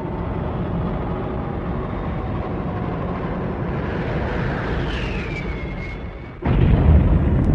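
Giant robot weapon sound effect: a steady rumbling roar with a high whine sliding downward about five seconds in. It drops out briefly, then a sudden, louder and deeper blast hits near the end.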